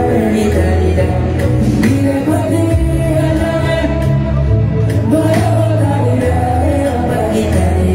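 Live concert music: a man singing into a microphone over a loud amplified backing with a heavy bass line.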